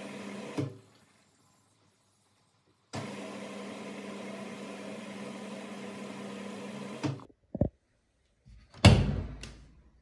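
Candy front-loading washing machine turning its drum through the wash: a steady motor hum with the load tumbling, which cuts off just after the start and runs again from about three seconds in to about seven seconds. Near the end comes a short thud, then a loud knock that dies away, with a click after it.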